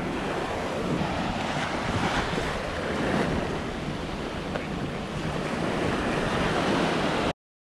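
Small ocean waves washing up the sand, with wind buffeting the microphone; the sound cuts off suddenly near the end.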